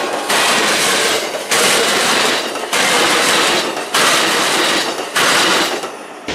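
Passenger train cars rolling past at speed, wheels clattering over the track: a loud rush of wheel-on-rail noise that surges sharply about every second and a bit as each car's trucks go by, then dies away near the end as the last car clears.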